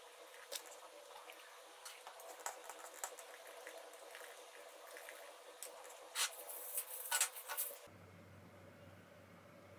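Typing on a laptop keyboard: irregular soft key clicks, with a louder flurry about six to seven and a half seconds in, cutting off suddenly about eight seconds in.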